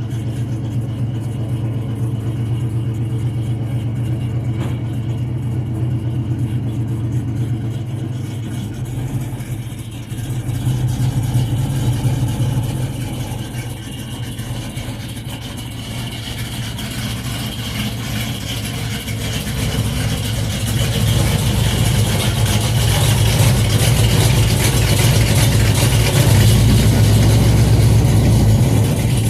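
Car engine running with its exhaust, a steady low drone that swells about ten seconds in and grows louder again over the last third.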